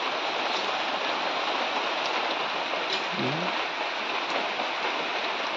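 Steady heavy rain pouring down onto a flooded, waterlogged yard.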